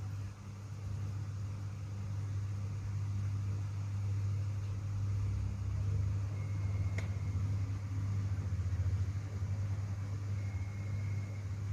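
Steady low mechanical hum, with a short high beep about six seconds in, a click during it, and a second short high beep near the end.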